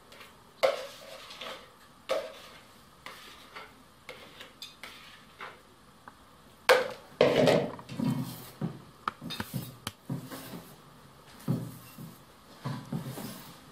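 Utensils working in a stainless steel mixing bowl: a spatula scraping and tapping beaten egg white out of a plastic bowl into thick batter, then a wire whisk stirring it against the metal bowl. Irregular knocks and scrapes, the loudest about seven seconds in, giving way to quicker, denser strokes.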